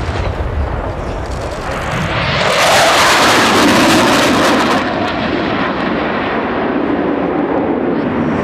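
Jet noise of a Panavia Tornado GR4's twin RB199 turbofans as it passes low. The noise builds over about a second, is loudest and harshest for about two seconds, then drops back to a steady, duller roar as the jet pulls away.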